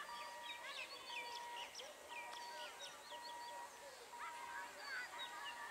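Small birds chirping and twittering in quick, overlapping calls. Under them runs a steady high tone that breaks off briefly every second or so.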